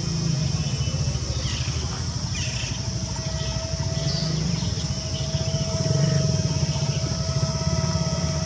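Wind buffeting the microphone outdoors, with a steady high whine running through it and a few short bird chirps in the first half.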